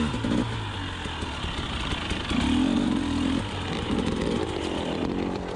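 Two-stroke engine of a KTM 300xc TPI dirt bike running under changing throttle, its note rising and falling, with a stronger burst of throttle about two and a half seconds in, as the rider gets on the gas with the tyres finding little traction on ice.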